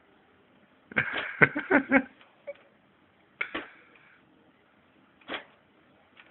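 Computer DVD drive clicking and rattling: a quick run of clicks about a second in, then single clicks a couple of seconds apart.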